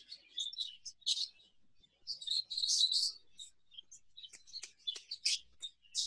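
Exhibition (English) budgerigars chirping and chattering in short high calls, with a longer run of chatter about two seconds in and a flurry of quick chirps near the end.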